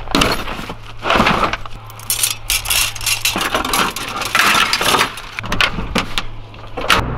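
Steel traps clinking and rattling against each other as gear is handled in a pickup truck bed, with rustling of a woven pack basket, ending in a sharp knock near the end.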